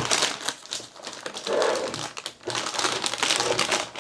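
Motherboard packaging being handled and opened: crinkling and rustling with scattered light clicks and taps.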